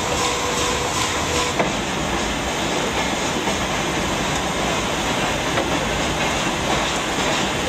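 Steam locomotives of a double-headed train at close range: a steady rushing noise. A held tone and faint regular ticking in the first second and a half stop abruptly.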